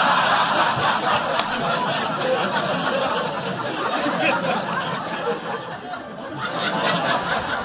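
Audience laughter after a punchline, a dense crowd of laughs that slowly dies away over several seconds.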